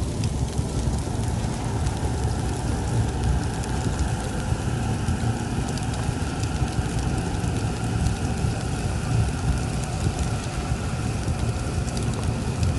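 Horror sound-effect ambience: a steady low rumble with faint held tones above it and scattered light ticks.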